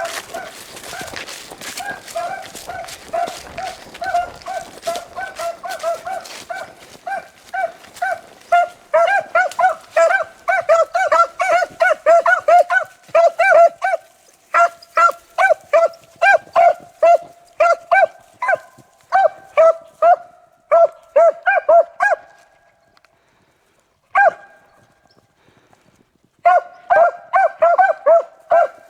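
Beagles baying on a rabbit's trail: a long run of short, pitched barks, a few a second, that breaks off about three quarters of the way through, with one lone bark, then starts again near the end.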